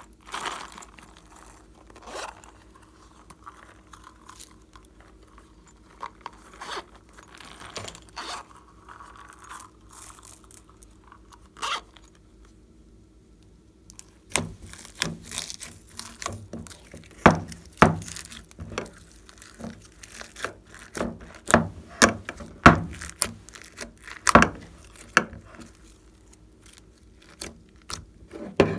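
Plastic compact cases clicking and tapping as they are handled. Then, from about halfway, glossy slime being mixed and squished in a plastic tub, with a dense run of sticky pops and crackles.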